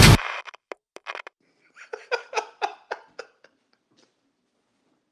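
Loud music cuts off abruptly, followed by a high voice making a quick run of short bursts of laughter, like giggling.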